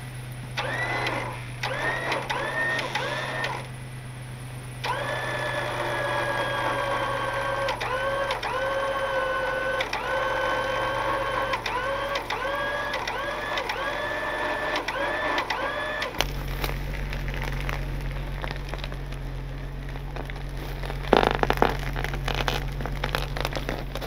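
Electric recovery winch (Harbor Freight Badlands) whining under load as it pulls a stuck van. First comes a few short jogs, each spinning up in pitch, then one long continuous pull with repeated brief dips in pitch. A steady low engine hum runs underneath, and there is a brief loud clatter near the end.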